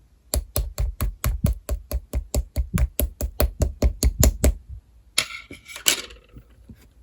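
Even, rapid tapping on a hard surface, about four to five taps a second for some four seconds, then a short crinkly rustle about five seconds in.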